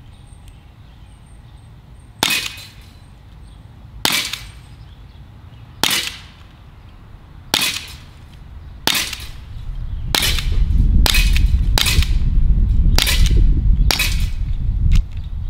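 Sig P365 CO2-powered 4.5 mm BB air pistol fired ten times, sharp pops about every one and a half to two seconds at first, then quicker, about a second apart. A low rumble sets in partway through.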